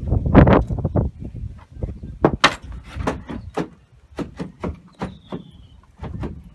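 A wooden door being knocked and hammered into place: a run of irregular sharp knocks and bangs on wood, heaviest in the first second and spacing out toward the end.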